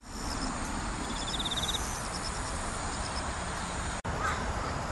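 Outdoor ambience: a steady rushing background with a few high chirps, and a short rapid high trill about a second in. A brief break near the end marks an edit.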